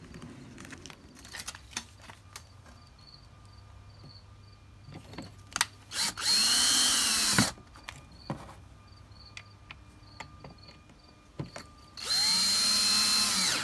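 DeWalt 20V cordless drill/driver driving screws into the armrest's plastic frame. The motor runs twice, about six seconds in and again near the end, each time rising to a steady whine for a second or so and winding down, with light clicks of handling between.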